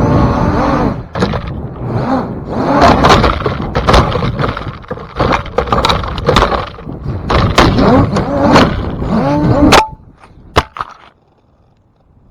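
Strong wind buffeting the camera's microphone, with many knocks, cracks and scrapes and a wavering whistle. About ten seconds in the noise cuts off sharply, leaving a few clicks and then a faint hush.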